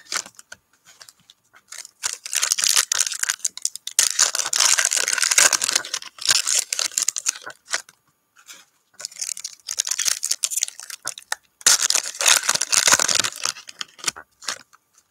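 Foil wrappers of Panini NBA Hoops trading card packs crinkling and tearing open, with cards being handled, in several bursts of a second or two each.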